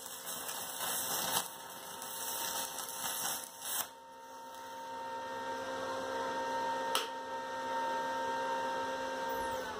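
Stick-welding arc crackling and sizzling as an electrode is run on a steel bar, stopping abruptly about four seconds in. After it, the 200 A single-phase MOSFET inverter welder gives off a steady electrical hum, with a single click about seven seconds in.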